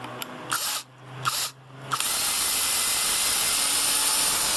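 Cordless electric screwdriver working screws in door-lock hardware: a few short bursts, then one steady run of about three seconds starting about two seconds in.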